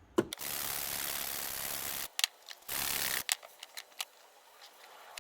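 A brush scrubbing soapy seatbelt webbing: a long stretch of steady scratchy brushing, then a shorter one about halfway through, followed by a few light clicks.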